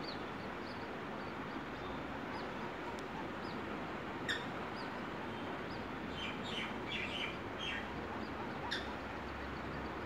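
White-breasted waterhen chicks peeping: short, high chirps every second or so, thickening into a quick run of chirps around six to eight seconds in, over a steady background hiss.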